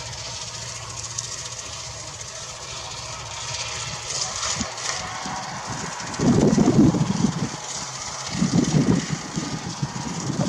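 A tractor's engine running steadily in the distance, a low even hum. About six seconds in and again about eight seconds in come louder, ragged low rumbling surges.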